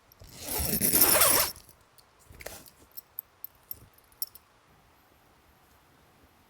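A loud rasping noise lasting about a second, like a zipper or fabric being pulled, followed by a few faint clicks and taps.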